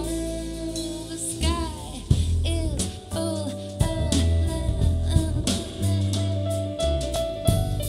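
Music: a band recording with guitar, a steady bass line and a voice singing bending melodic lines, played back as an earphone sound demo.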